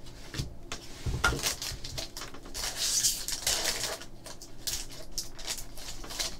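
Silver foil wrappers of 2013-14 SP Authentic basketball card packs crinkling and rustling in the hands as a pack is picked up and opened, with short taps and slides of cards. The crinkling is loudest around the middle.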